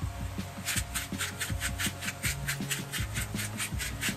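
Pepper mill grinding pepper over a pan: a quick, even run of dry rasps, about five a second, starting just over half a second in.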